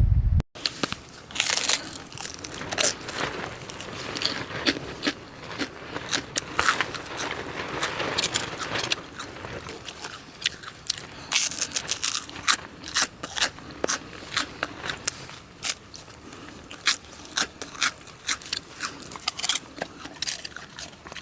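Crunching and chewing of something crisp close to the microphone, with irregular sharp crunches throughout.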